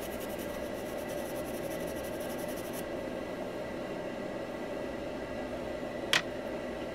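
Steady low hiss and hum of room tone, with faint fine ticking in the first few seconds and a single short click about six seconds in.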